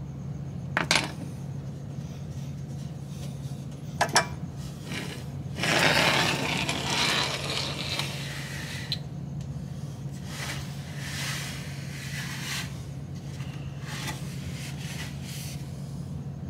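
Sharp metallic clicks about a second in and again near four seconds, then a few seconds of scraping. These come from a grease gun being worked on the grease fitting of a rear sway bar end link. A steady low hum runs underneath.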